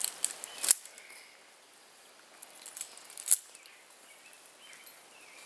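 Quiet outdoor background broken by sharp clicks, one just before a second in and a louder one after about three seconds, with a few lighter ticks. The clicks come from a tree climber's rope gear as he ascends a single rope.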